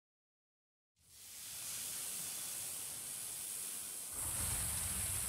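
Silence, then a steady hiss of background ambience fades in about a second in, growing fuller with a low rumble about four seconds in.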